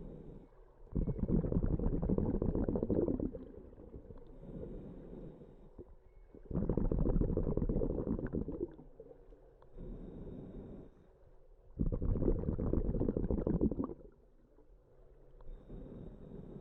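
Scuba diver breathing through a regulator underwater: three loud, bubbling exhalations, each about two seconds long and about five and a half seconds apart, with a quieter hiss of inhalation between them.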